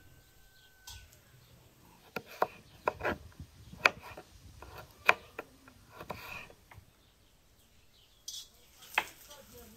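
Kitchen knife slicing carrots into thin strips on a wooden cutting board: irregular sharp knocks as the blade strikes the board, with a brief pause before a last cut near the end.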